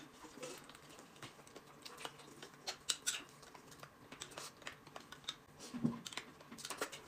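Quiet eating and table sounds: scattered soft clicks and crackles from roast chicken being torn apart and a spoon stirring a drink in a glass cup, with a brief low hum about six seconds in.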